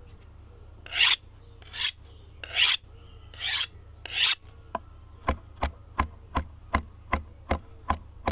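Percussion from the end-card music: five rasping swishes, then a steady beat of sharp clicks with a low thump, about two or three a second, starting near the middle.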